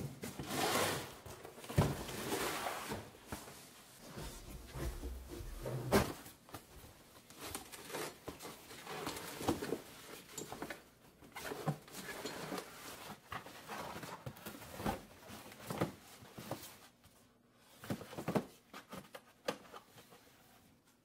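Cardboard storage box pulled from a wooden shelf and its contents rummaged through by hand: an irregular run of rustles, scrapes and knocks, with fabric straps and a small wooden box being shifted about inside.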